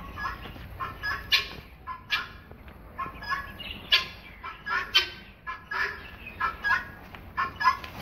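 Domestic fowl calling: a steady run of short, sharp calls, about three a second, some much louder than others.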